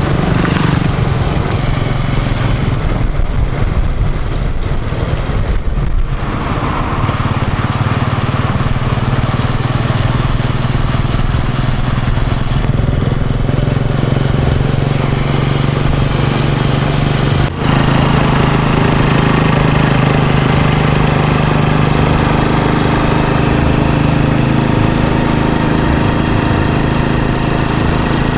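Small motorcycle engine running steadily under way, with a haze of wind and road noise. The engine note drops out for an instant about two-thirds of the way through, then rises in pitch toward the end as it speeds up.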